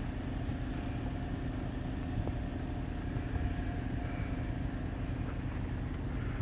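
Heavy rain falling, a dense steady hiss with low rumble on the wet microphone, over a faint steady low hum.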